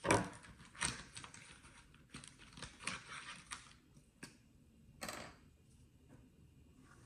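A popsicle-stick triangle is set down on construction paper with a sharp knock, the loudest sound. Then come a few more light taps and a short stretch of scratching as its outline is traced onto the paper.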